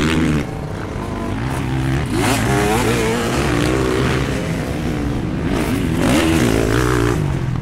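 Dirt bike engine revving, its pitch rising and falling several times.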